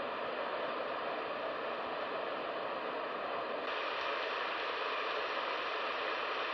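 AIMENO sleep sound machine playing a steady noise track through its small speaker. About three and a half seconds in it switches to another track, the rain sound, with more hiss in the upper range.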